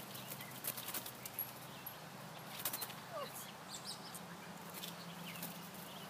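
Faint, scattered short calls and rustles from blue jays caught in garden netting.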